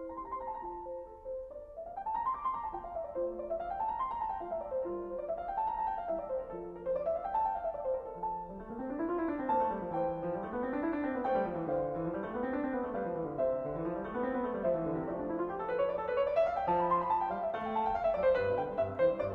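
Background piano music: arpeggios running up and down over and over, joined by a lower running line in the middle of the passage.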